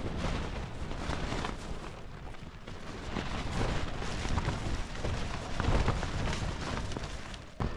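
Gusty wind buffeting the camera microphone, a low rushing rumble that rises and falls.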